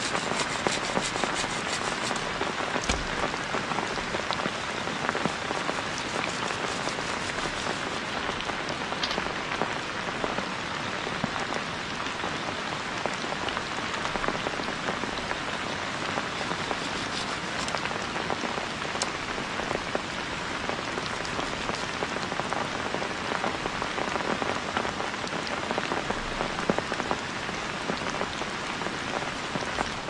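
Heavy rain falling steadily: an even hiss of rain with many sharp ticks of single drops striking close by.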